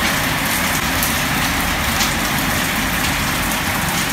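Steady, even rushing background noise with no music or tones in it.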